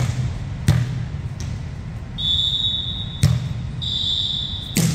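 A volleyball being hit and bouncing on a hardwood gym floor: four sharp slaps and thuds a second or two apart, with two high, steady squeaks of about a second each between them, in a large echoing hall.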